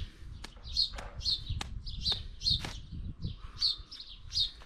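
Small birds chirping: short, repeated chirps, about three a second, with a few sharp ticks among them.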